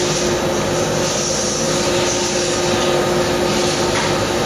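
Steady mechanical drone of running machinery, an even rushing noise with a constant hum in it.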